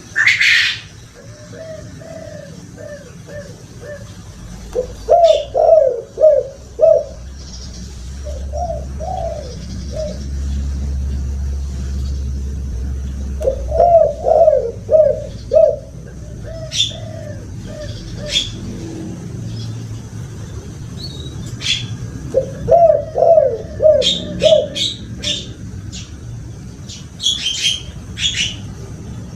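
Spotted doves cooing in repeated multi-note phrases, the 'kuk 2' call type, several times over. Thin high chirps of small birds come in, mostly in the second half, and a low rumble rises and fades near the middle.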